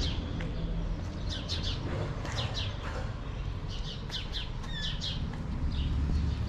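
Small birds chirping over and over in short, high, down-slurred chirps, often in quick pairs, over a steady low rumble.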